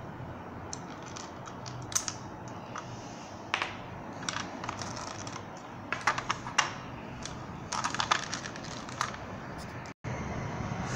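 Hard plastic toy vehicle parts clicking and knocking as they are handled, in irregular clusters of sharp clicks.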